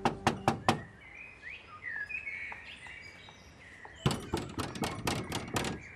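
Hand knocking on a sheet-metal door: a quick run of four raps, then after a pause of about three seconds a longer run of raps. Birds chirp in the pause.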